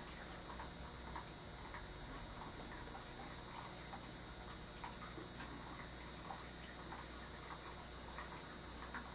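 Faint, irregular light taps and clicks of an oil-painting brush working on the painting panel and palette, one or two a second, over a steady low hum and hiss.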